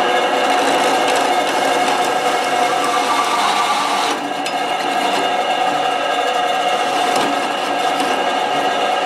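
Powered hole cutter spinning in a machine spindle and cutting through square steel tubing: a steady motor whine under a hissing, grinding cutting noise that eases briefly a little after four seconds, then picks up again.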